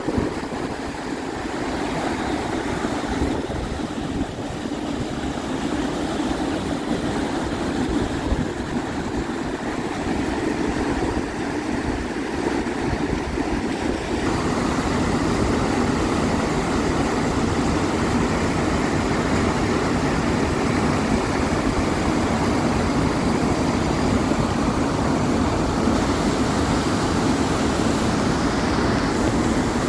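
Steady rushing of whitewater rapids and a waterfall. The rush grows louder and hissier about halfway through.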